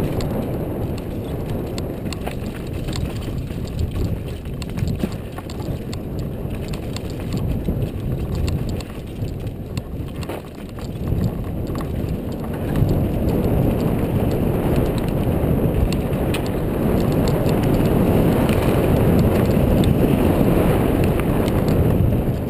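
Downhill mountain bike running fast over a dry dirt trail: tyres on loose dirt and roots, with the bike rattling and clicking over bumps and wind rumbling on a helmet-mounted camera's microphone. It gets louder about halfway through as the speed picks up.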